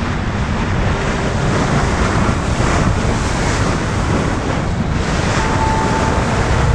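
Wind buffeting the microphone on a boat at sea, over the steady rush of the water.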